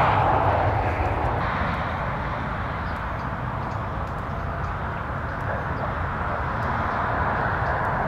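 Steady outdoor rushing noise with a low rumble, a little louder at first and settling after a few seconds; no distinct calls or voices stand out.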